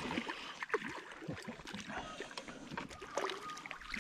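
Hooked golden perch splashing at the water's surface beside the boat, a run of irregular small splashes and water slaps.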